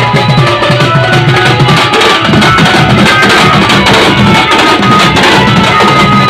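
Loud, dense drumming on barrel drums from a walking street band, mixed with melody played through a truck-mounted DJ rig of horn loudspeakers.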